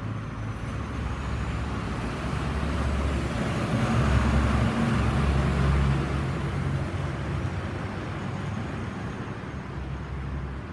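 A motor vehicle engine and road noise, growing louder toward the middle and then fading.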